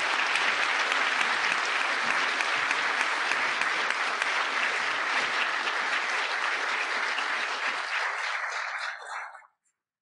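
Audience applauding steadily, fading out and stopping about a second before the end.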